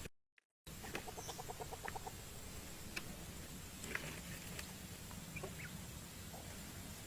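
A bird's rapid clucking trill, about ten short notes in a second, starting about a second in, with scattered small clicks over a faint background. The sound drops out completely for half a second near the start.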